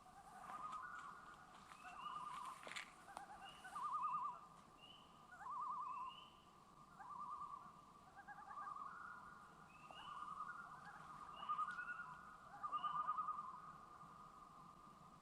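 A faint night chorus of small animal calls: short rising peeps about once a second over a steady trilling drone.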